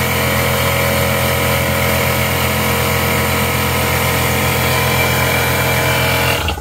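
Electric air compressor running steadily and working hard as it fills its tank, then shutting off abruptly near the end once the tank has reached full pressure.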